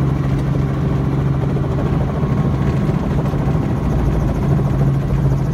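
Helicopter running steadily while set down on the ground, its engine and rotor making a constant low drone with no change in pitch.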